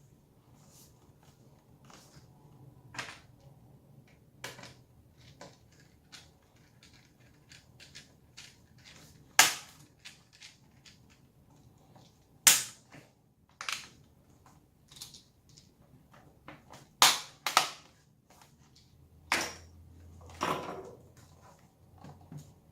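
Hard plastic clicks and knocks from handling an HP ProBook 440 G5 laptop and its parts. They come irregularly, with quieter taps between and about half a dozen much sharper snaps between roughly nine and twenty seconds in.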